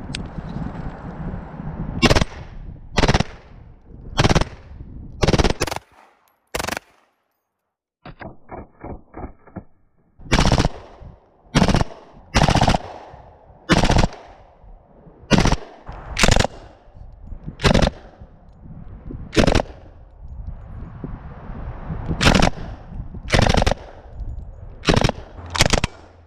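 Single gunshots from submachine guns fired one at a time, about one shot a second: a CZ Scorpion EVO 3, then an FN P90. There is a brief break about seven seconds in, followed by a quick run of faint clicks, before the shots resume.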